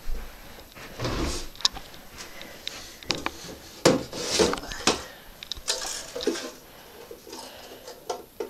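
An under-bed storage drawer being pulled open, with scrapes and a series of sharp knocks and clicks, then the clicks and knocks of a small money box being handled.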